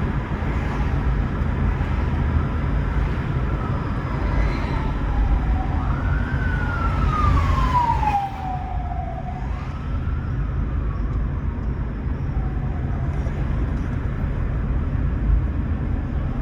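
Steady road and tyre noise from a moving Toyota Prius, with an emergency-vehicle siren wailing over it, its pitch sliding up and down and loudest a little past the middle.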